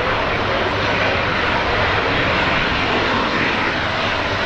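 Dassault Falcon 7X business jet's three rear-mounted turbofan engines running steadily as it rolls along the runway after landing: an even, loud jet rush with no change in pitch.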